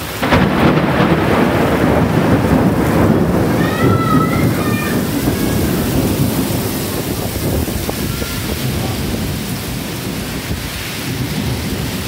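A thunderclap breaks suddenly and rolls on for several seconds, slowly fading, over a heavy downpour of rain on a flooded street.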